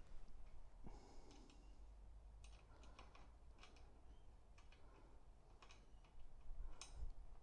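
Faint, irregular small metallic clicks and taps of gate-hinge parts being handled as a nut is fitted onto the hinge, a little louder near the end.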